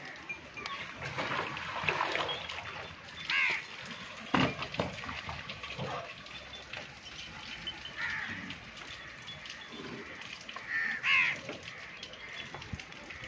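Crows cawing a few times, spaced several seconds apart, over farmyard background noise, with a sharp knock about four seconds in.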